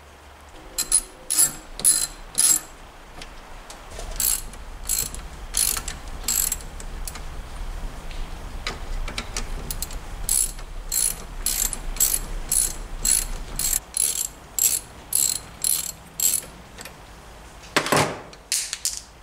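Ratchet wrench clicking as bolts are backed out of a Motobecane AV7 moped engine's cases, in runs of sharp clicks about two a second. There is one louder knock near the end.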